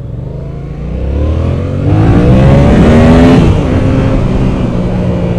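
Yamaha FZ-07's parallel-twin engine revving hard under acceleration, its pitch climbing for about three seconds, then dropping at an upshift and running steadier.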